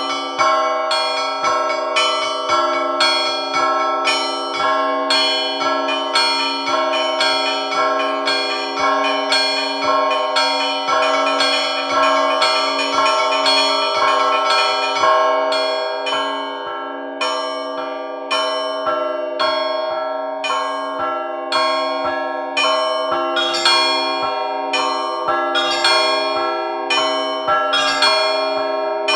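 Russian Orthodox church bells rung by hand by a single bell-ringer: quick, rhythmic strikes on smaller bells, about three a second, over a steady low ringing tone.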